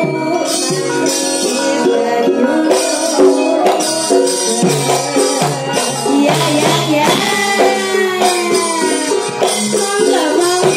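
Javanese gamelan ensemble playing, with struck metal instruments and drumming, and a female sinden voice singing over it.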